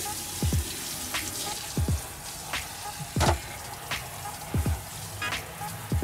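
Water hissing from a spray wand onto a rubber van floor liner, under background music with a deep, falling bass drum about every second and a half.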